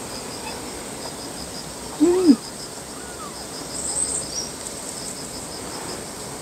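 Newborn kittens mewing faintly from their hiding place between earthenware jars, with one short, loud, low call about two seconds in. A fast, steady, high chirping runs underneath.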